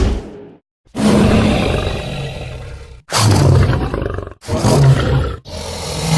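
Movie dinosaur roar sound effects: after a brief silence, four separate roars follow one another. The first lasts about two seconds and fades, two shorter ones come next, and a fourth starts near the end.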